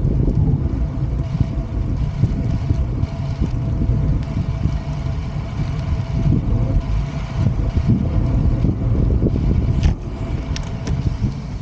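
Wind buffeting the microphone of a camera carried on a moving road bike, a steady low rumble, with a few light clicks near the end.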